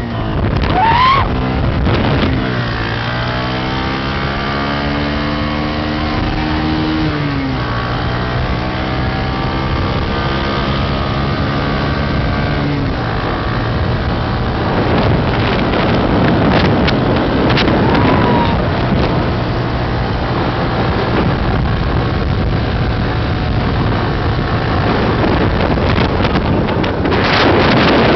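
Motorcycle engine pulling up through the gears: its note climbs, drops at a shift about seven seconds in, then holds steady, with wind rushing over the microphone. About thirteen seconds in the engine note fades, and steady wind buffeting takes over as the bike cruises.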